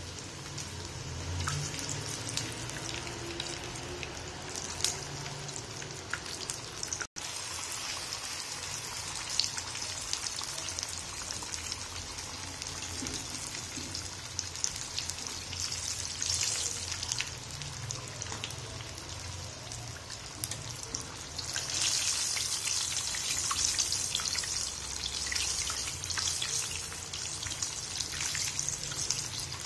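Samosas deep-frying in hot oil: a steady sizzle full of small crackles. It cuts out for an instant about seven seconds in and grows louder for the last third.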